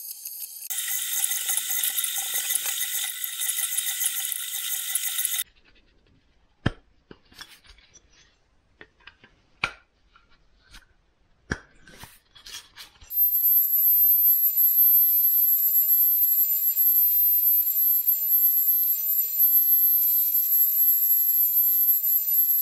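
Mill-drill spindle running and drilling aluminium plate: a steady high-pitched whine that stops about five seconds in. A few sharp metallic clicks and knocks follow as the plate is handled. About thirteen seconds in, a second steady high-pitched whine begins and runs on.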